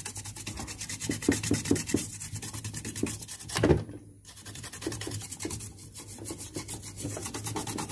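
A toothbrush scrubbing the thinner-wetted solder side of a TV circuit board in quick back-and-forth strokes, cleaning the freshly resoldered joints, with a short break about four seconds in.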